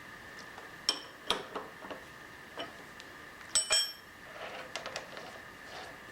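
Steel tooling being handled at a milling machine, giving a few sharp metallic clinks with a short ring: two about a second in and a louder pair a little past the middle. A faint steady high-pitched hum runs underneath.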